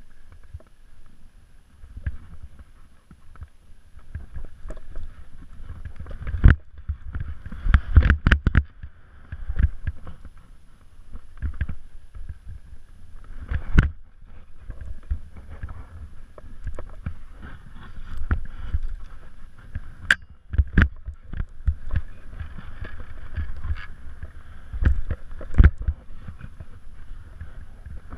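Skis running through deep powder snow: a steady swishing hiss with low rumble, broken by irregular sharp thumps as the skis hit bumps and turns.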